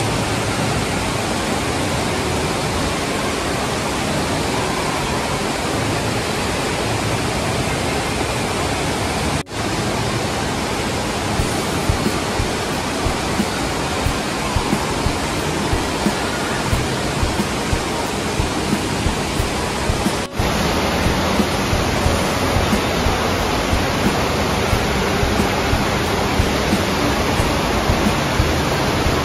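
Steady rush of spraying and falling water from a splash-pad play structure, echoing in a large indoor hall. After a cut about 20 seconds in, a sheet-wave surf simulator's water sheet takes over, rushing slightly louder with small splashy peaks.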